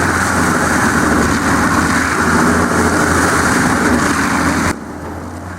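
Heavy machinery running loudly with a steady low engine hum under a dense grinding noise, cut off abruptly near the end and replaced by a quieter, steady engine hum.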